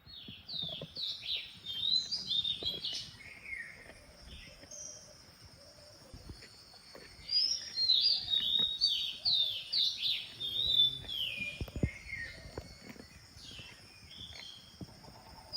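Several birds calling together, many quick, high chirps that slide down in pitch, in two busy spells with a quieter stretch between them.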